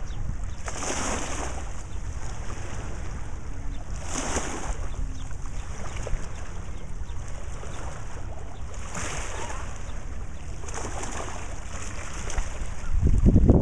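Small river waves lapping and splashing against a rocky shore, a hissing swell about four times a few seconds apart. Wind buffets the microphone as a steady low rumble, with a stronger gust near the end.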